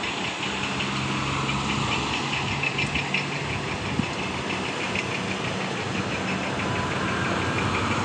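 Diesel engine of a truck-mounted concrete boom pump running steadily, with a low hum and a fast, even clatter.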